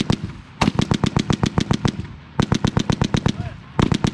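M2 .50 caliber heavy machine gun firing three bursts of rapid, evenly spaced shots, about ten a second, with short pauses between bursts.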